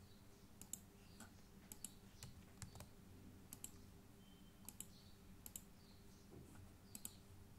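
Faint, scattered clicks of a computer mouse, a dozen or so short taps at uneven intervals, over a low steady hum.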